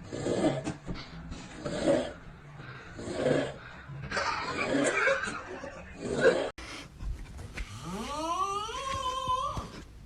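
Snoring in a steady rhythm, one noisy breath about every second and a half. After an abrupt cut, a single drawn-out sound rising in pitch.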